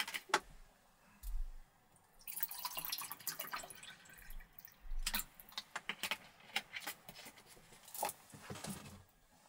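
Drinking water poured from a bottle into a cup, a pour of about two seconds starting a couple of seconds in, with scattered light clicks and knocks of the bottle and cup before and after.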